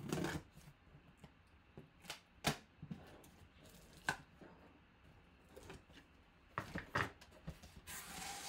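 Cardboard box being slit open along its taped seam with a blade and then pulled apart: scattered sharp clicks and scrapes, and a longer rasp of cardboard sliding near the end.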